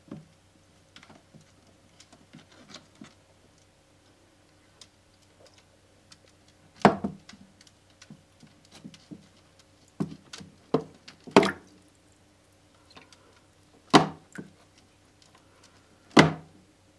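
Irregular sharp knocks and thumps in and against a glass aquarium, about half a dozen loud ones with smaller clicks between, over a faint steady hum.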